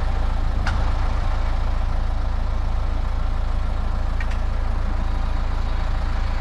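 Strong storm wind buffeting the microphone: a steady deep rumble under a hiss of moving air.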